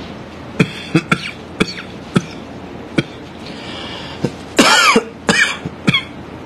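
A man's short coughs and throat noises close to the microphone: several small sharp clicks and catches in the first three seconds, then a louder cough with a rising-and-falling voiced sound about four and a half seconds in, followed by two shorter ones.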